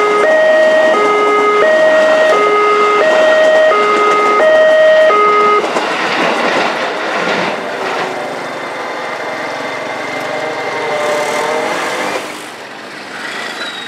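An uncommon level-crossing alarm sounds two tones alternating low–high, switching about every two-thirds of a second, then cuts off about five and a half seconds in. After it, a JR 205 series electric commuter train is heard running past on the track.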